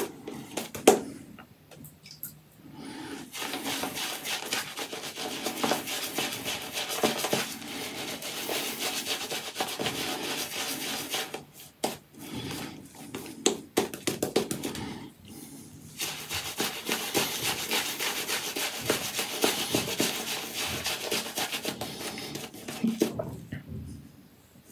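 A 28 mm Apshave Cashmere shaving brush is being worked over lather on the face, making a wet, bristly rubbing and swishing. It runs in long stretches broken by a few short pauses.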